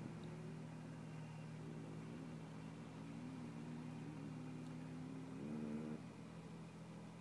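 Distant vehicle engine revving up and down as it drives through a flooded creek, straining under load. The pitch rises and falls several times and is loudest just before the revs drop off about six seconds in.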